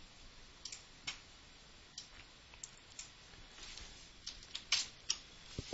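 Faint, irregular clicks of a computer keyboard and mouse, about a dozen separate taps, a few of them louder near the end.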